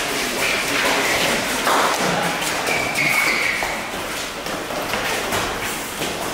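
Eton fives rally: the ball thudding off gloved hands and the court walls several times, with short squeaks of trainers on the court floor.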